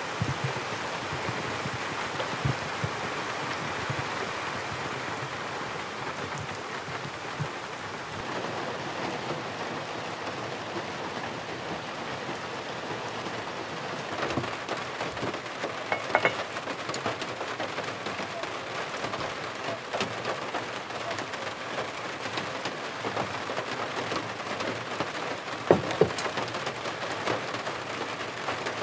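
Steady rain falling, with scattered drops and drips striking close by; a few sharper drops stand out about halfway through and again near the end.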